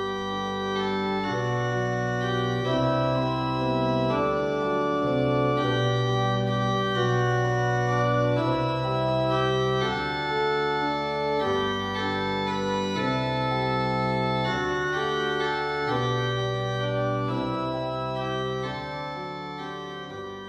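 Organ music: slow, sustained chords, each held a second or two before changing, fading down near the end.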